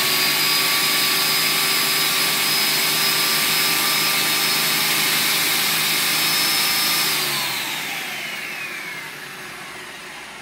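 Electric countertop blender running at full speed on a full jar of liquid cheesecake batter, a steady high whine over the churning. About seven seconds in the motor is switched off and spins down, the whine falling in pitch as it slows.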